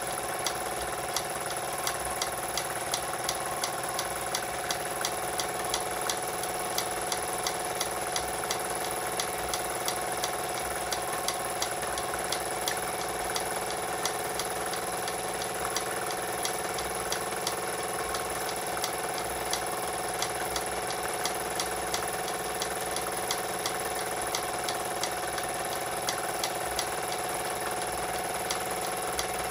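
Jensen 25GR model steam engine running steadily and driving belt-powered miniature accessories: a steady mechanical whir with a quick, regular ticking.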